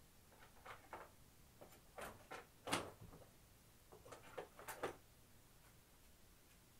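Faint, scattered clicks and knocks in a small room. There are a couple about a second in, a louder cluster around two to three seconds in, and another cluster just before five seconds, with quiet room tone between them.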